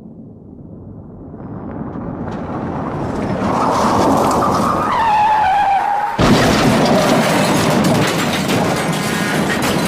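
Car crash sound effect: a car comes in, growing louder, then its tyres squeal with a falling pitch. About six seconds in there is a sudden heavy impact, followed by a long stretch of crunching and rattling.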